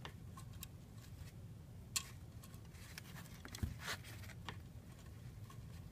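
Faint scattered clicks and taps of hands handling quadcopter frame plates, screws and landing-gear parts during assembly, with one sharper click about two seconds in and a low steady hum underneath.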